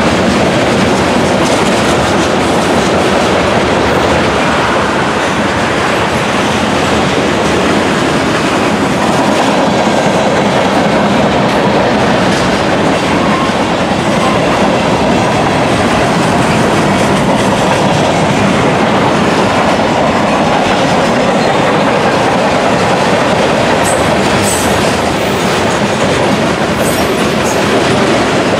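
Freight train cars (tank cars and boxcars) rolling past close by, a loud steady rumble of steel wheels on rail with rhythmic clickety-clack over the rail joints. A few brief high squeaks near the end.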